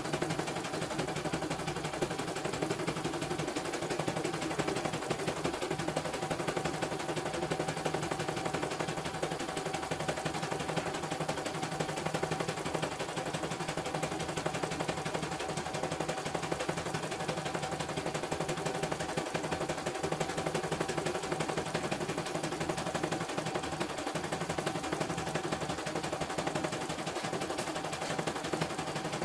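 CNY E900 portable embroidery machine stitching a design at high speed: a fast, even clatter of needle strokes that runs without a break.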